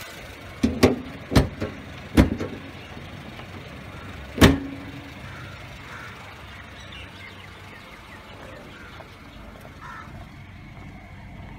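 Honda Civic's hood being lowered and shut: a few sharp knocks in the first couple of seconds as it is handled, then the hood slams shut about four and a half seconds in, the loudest sound. The 1.8-litre i-VTEC engine idles steadily underneath throughout.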